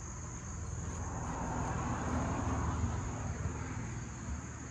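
Insects chirring in a steady, high, even drone. Under it a soft rushing noise swells up over the first couple of seconds and fades away again toward the end.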